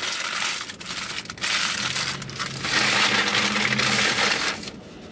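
Paper sandwich wrapper crinkling and crackling as a fast-food chicken sandwich is handled, with a few sharp crackles, easing off near the end.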